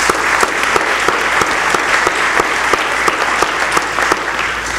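Audience applause: many people clapping together, dying away near the end.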